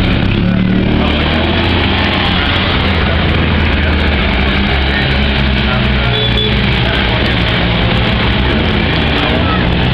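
Citroën 2CV race cars' air-cooled flat-twin engines running as the cars move slowly down the pitlane, a steady low drone under a general haze of crowd noise.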